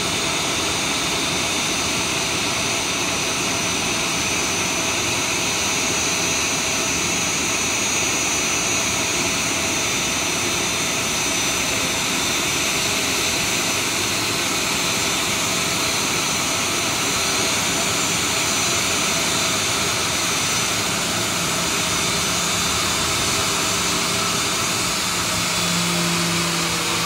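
Boeing 737-800's CFM56-7B turbofan engines running at idle as the airliner taxis in: a steady jet rush with a high, constant whine. A lower hum joins near the end as an engine passes close.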